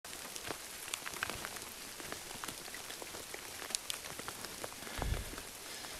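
Rain falling and dripping in a forest: an even hiss with many scattered sharp drop ticks. A brief low rumble about five seconds in.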